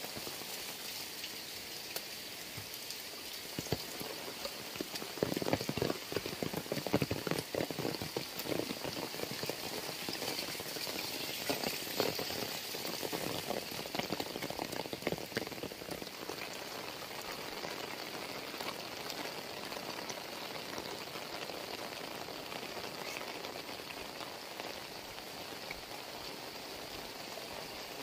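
Heavy rain falling steadily on concrete ground and roofs, with louder spatters of drops through the middle.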